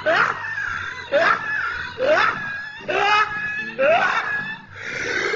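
High-pitched laughing sound effect: a shrieking laugh that swoops upward in pitch about once a second, five times over.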